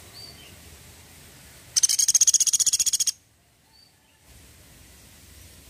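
Small pied woodpecker (pelatuk sampit) giving its 'tembakan' rattle: a loud, high, fast burst of about twenty notes, roughly fifteen a second, lasting just over a second, starting about two seconds in.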